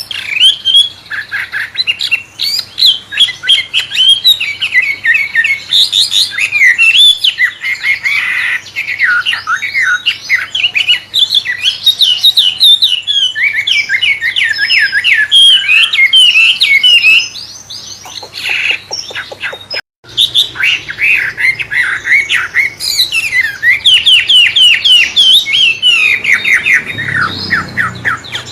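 Caged wambe songbird singing a long, varied song in the style of a white-rumped shama (murai batu): rapid strings of rising and falling whistles and chattering notes. About two-thirds through the song eases into a fast rattling stretch, then picks up again in full.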